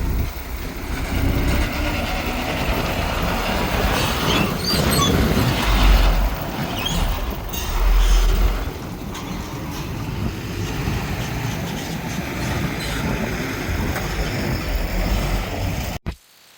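Diesel engine of heavy earthmoving machinery running steadily with a deep rumble, with scattered metallic squeaks and clanks between about four and eight seconds in.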